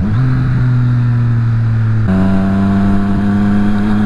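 2018 Triumph Street Triple R 765's inline-three engine with a Yoshimura exhaust, running while the bike is ridden. Its note steps up in pitch about two seconds in, then climbs slowly.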